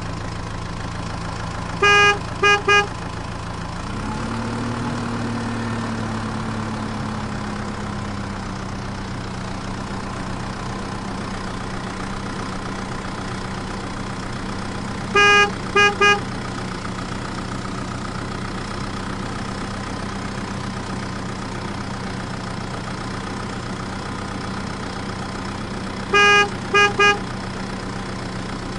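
Truck engine sound effect running steadily, revving up about four seconds in and easing back. A truck horn honks three times in bursts of one longer beep then two short ones: near the start, about halfway, and near the end.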